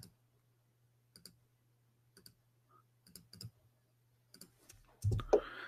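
Faint, irregular clicks from a computer being worked, about seven over five seconds, over a steady low electrical hum. A short, louder low thump comes near the end.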